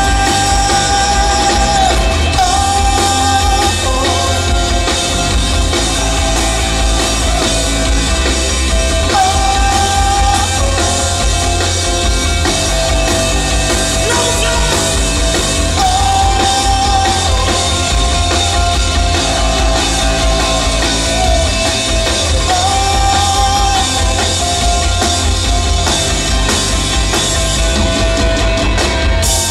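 Live rock band playing full out: drums and bass driving underneath, with a melody line of long held notes over the top.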